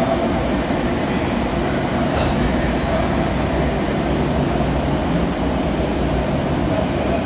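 Sydney Trains K-set electric train running, a steady loud rumble with a hum.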